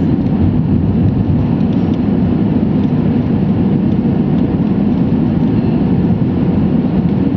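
Steady low roar of cabin noise inside an Airbus A320 on approach: engine and airflow noise heard from a window seat over the wing.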